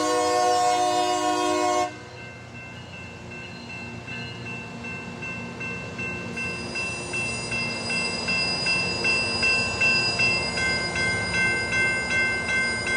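A train's multi-note air horn sounds for about two seconds and cuts off, leaving the rumble of the rail grinding train. About six seconds in, a steady high-pitched ringing joins it and grows louder, pulsing about twice a second.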